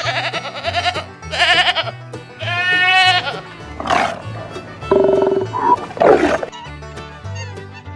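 Background music with a steady bass line, over which several short animal calls sound in turn. The longest is a wavering, bleat-like call about two and a half seconds in.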